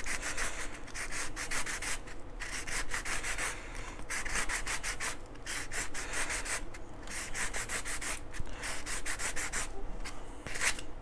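Sanding block rubbed back and forth over an orange plastic model-rocket nose cone in quick repeated strokes, taking a little off its diameter to ease a fit that is too tight.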